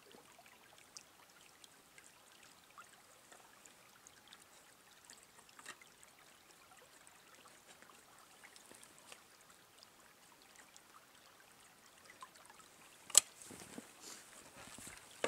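Faint rustling of clothing with scattered small ticks, then a single sharp click about 13 seconds in, followed by louder rustling and crunching of snow as the hunter moves.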